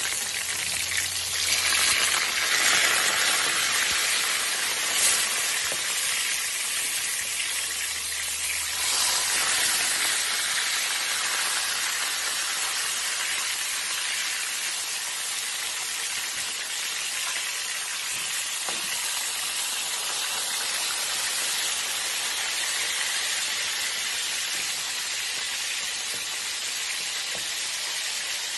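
Fish steaks shallow-frying in hot oil in a metal pan: a steady sizzle that swells twice in the first ten seconds.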